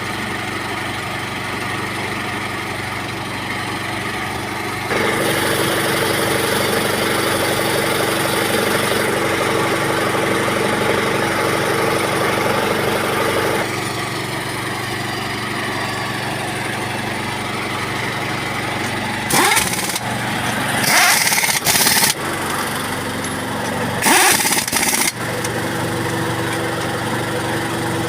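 A small engine running steadily, louder for several seconds from about five seconds in. Several short, loud bursts of noise come near the end, around the 19 to 25 second mark.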